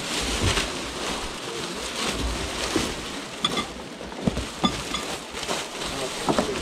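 Steady rush of water and wind aboard a J/120 sailboat under way, with several sharp knocks and clicks from deck gear in the second half.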